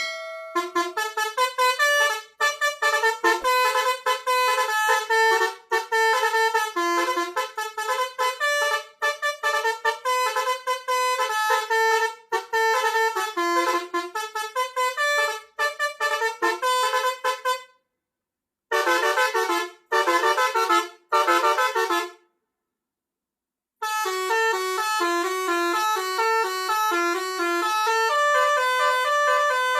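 Klakson basuri, a multi-tone melody horn for trucks and buses, playing tunes of quick, shifting notes. It stops twice briefly, about eighteen and twenty-two seconds in, then resumes with longer held notes.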